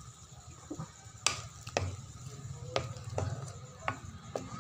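A cooking utensil stirring shrimp in sauce in a metal wok, knocking against the pan about half a dozen times at irregular intervals, over a low steady hum.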